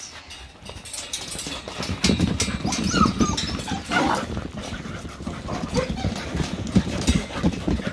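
English Springer Spaniel puppies scrambling and jumping about on a raised fabric dog bed, their paws pattering and thumping irregularly on the taut fabric. It is quieter at first and becomes busy from about two seconds in.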